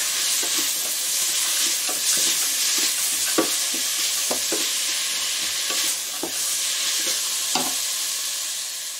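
Sliced onions and leek sizzling in olive oil and butter in a stainless steel pot over high heat, stirred with a wooden spoon that knocks and scrapes against the pot now and then. The sizzle fades near the end once the stirring stops.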